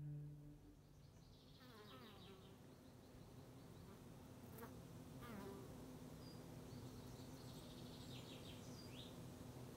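Faint buzzing of a fly, its pitch sliding as it passes about two seconds in and again around five seconds, over a quiet room with a few faint high bird chirps near the end.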